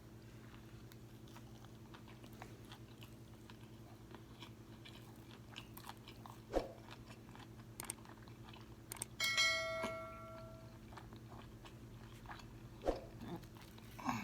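Close-up chewing of a crispy fried fish sandwich: faint crunching and wet mouth clicks, with a couple of soft bites. About nine seconds in, a brief ringing tone lasts about a second and a half.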